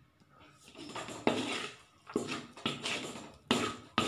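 Metal spatula scraping and pushing thick almond halwa around a hammered metal pan, a series of quick strokes each starting sharply, from about a second in. The halwa is in its final stage, stiff with ghee and starting to come away from the pan.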